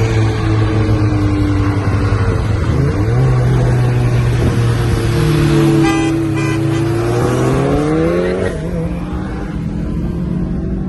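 Car engine running, its pitch climbing over several seconds and then easing off about eight and a half seconds in.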